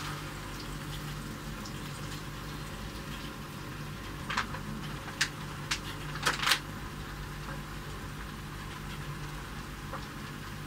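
Eggs cooking in a frying pan with a faint sizzle under a steady low hum, and a few sharp crinkles of a plastic bag of shredded cheese midway through.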